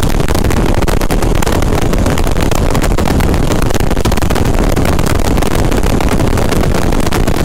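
Motorcycle running at road speed, heard from the rider's own microphone: a steady loud rush of engine, road and wind noise with constant crackling buffeting on the mic.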